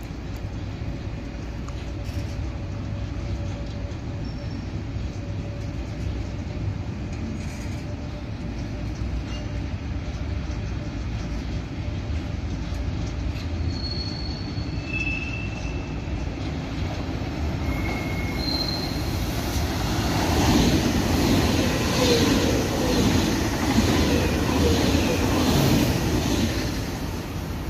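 Freight train rolling slowly past with a steady low rumble and a few short, high wheel squeals. About twenty seconds in, an ICE high-speed train passes close at speed, a loud rushing wheel-and-air noise that swells and falls away near the end.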